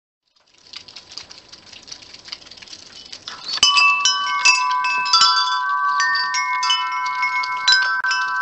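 Hanging metal-tube wind chime knocked by hand: faint light tinkling at first, then from about three and a half seconds in the tubes are struck hard several times and ring out in long, overlapping clear tones.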